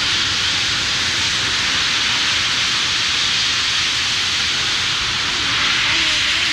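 The Mirage's man-made volcano erupting: a steady rushing hiss from its gas-fed flame bursts and the water cascading down its face, heard through old VHS camcorder audio.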